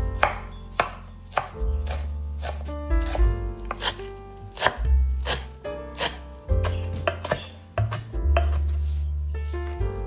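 Chef's knife chopping fresh parsley on a wooden cutting board: a long run of sharp, uneven knife strikes against the board, over background music.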